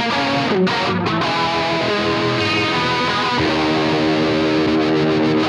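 Electric guitar, a Gibson Les Paul Standard, played with a distorted tone: a run of picked notes, then a chord held and ringing for about the last two seconds.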